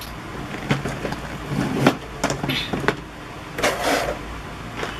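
Small plastic parts being handled: a scatter of sharp clicks and knocks with short rustles, as a plastic organizer box is opened and searched through.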